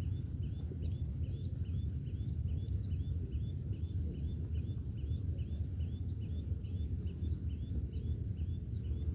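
Low, uneven rumble of wind on the microphone, with a faint high chirp repeated evenly about three times a second throughout.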